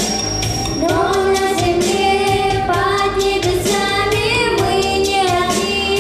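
A song sung by a high voice, a child or young woman, over a backing track with a steady beat.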